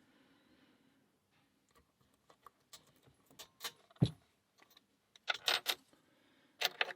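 Small metallic clicks and rattles of an Abus 65/20 padlock being worked by hand, with one sharper knock about four seconds in and quick clusters of clicks near the end.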